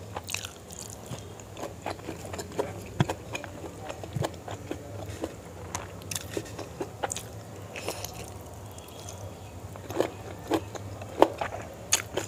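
Close-miked chewing and wet mouth smacks of a person eating chicken gizzard and liver curry with rice. Irregular clicks run throughout, with the sharpest ones near the end.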